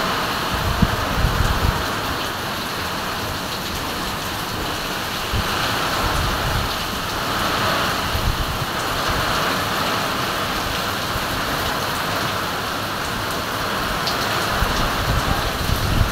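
Typhoon wind and heavy rain: a steady rushing hiss that swells and eases with the gusts, with low rumbling buffets near the start and again near the end.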